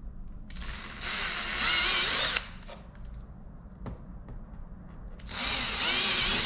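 Cordless drill boring into a Corvette's rear decklid to enlarge a spoiler mounting hole to the next bit size. It runs in two bursts of about two seconds each, about a second in and again near the end, with the motor's whine wavering as the bit cuts.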